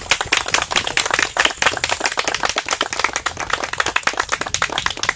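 A small group of people applauding by hand: a dense, irregular patter of claps.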